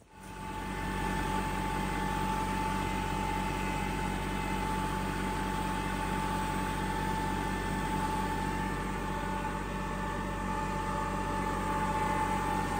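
Kubota L3901 compact diesel tractor running steadily under way, with an even engine drone and a steady high whine over it.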